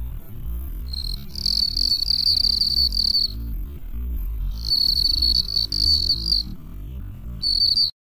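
European field cricket singing at its burrow: three bouts of rapid, high-pitched chirping of one to two seconds each, the first starting about a second in. A low rumble runs underneath, and the sound cuts off suddenly near the end.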